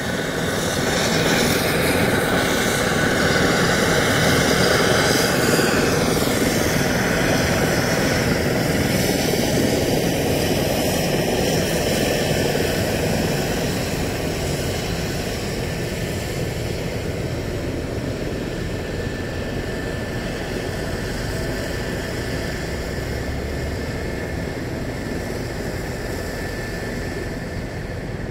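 Helicopter turbine whine and rotor noise, loudest in the first few seconds and then fading steadily, heard from inside a car in traffic.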